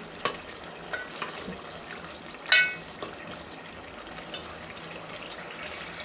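Onion-tomato masala sizzling as it fries in oil in a metal pot, stirred with a steel ladle that scrapes and clinks against the pot several times. The loudest clink, about two and a half seconds in, rings briefly.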